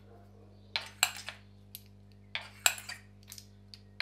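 Light metallic clinks and taps of spark plugs being lifted out of a Honda S2000 engine's plug wells with a magnetic pickup tool and knocking together in the hand, in several short clusters over a faint steady hum.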